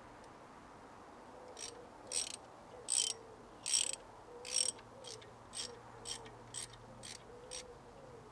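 A ratchet wrench clicks in about ten short runs as a 17mm socket undoes the nylock nut on a tie rod end ball joint. The first few runs are longer and louder, the later ones shorter.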